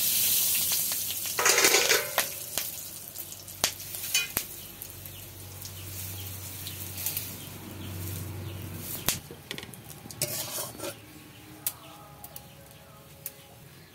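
Whole spices (cardamom, cloves, cinnamon, cumin, dried red chillies and bay leaves) sizzling and crackling in hot oil for a tempering, with sharp pops here and there. It is loudest in the first two seconds and dies down gradually.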